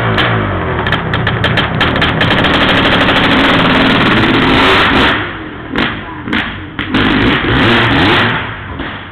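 Honda CR500 500cc two-stroke single-cylinder dirt bike engine revving hard, its pitch rising and falling as the bike is ridden. About five seconds in it drops off and blips a few times, then fades as the bike moves away.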